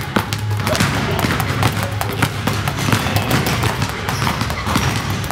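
Several basketballs being dribbled at once on a hardwood gym floor: many quick bounces overlapping in an uneven rhythm.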